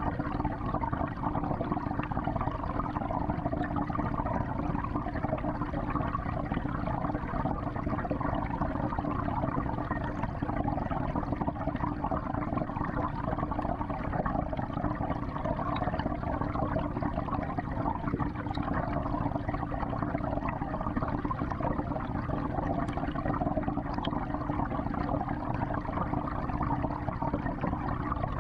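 Steady churning and gurgling of water circulating in a 55-gallon aquarium, the continuous flow of its filter.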